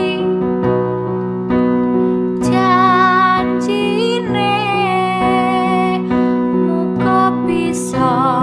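Background music: keyboard chords held and changing every second or so, with a wavering melody line over them a few seconds in.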